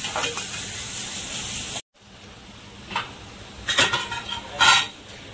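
Ladle stirring chicken korma in an aluminium pot over the flame, with a steady sizzle. This breaks off suddenly about two seconds in; after that the pot simmers more quietly, with a few short knocks.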